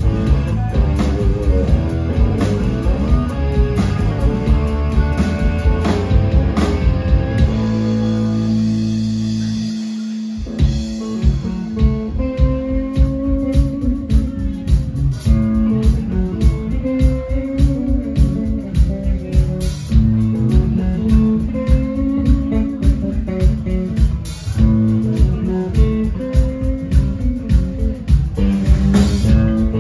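Live blues-rock band playing on electric guitar, bass guitar and drum kit. About seven seconds in the band holds a ringing chord that fades out, then after a brief break the drums and bass come back in with a steady beat under sustained guitar lines.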